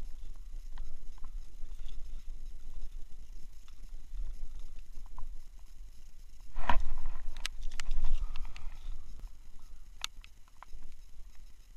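Scattered clicks and rustles of hands and a glove working a hook out of a small mackerel, louder twice around seven and eight seconds in, over a steady low rumble.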